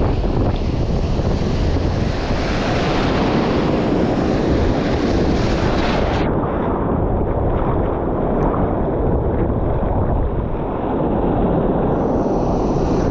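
Wind buffeting the microphone over breaking ocean surf, a steady loud rush.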